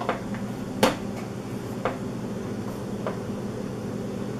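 A hand screwdriver driving in the screw that fastens a pedal onto a Cubii Jr elliptical exerciser: a few light clicks and knocks about a second apart, the sharpest about a second in, over a steady low hum.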